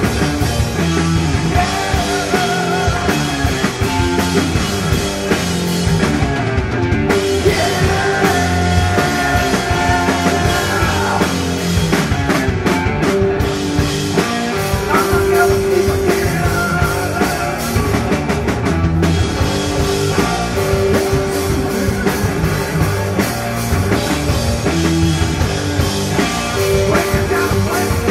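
Stoner rock band playing live, with electric guitar, bass and drum kit at a steady loud level.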